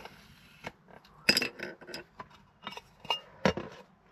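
Several sharp clinks and knocks of a glass pane being handled against a wooden frame, the loudest about a second in.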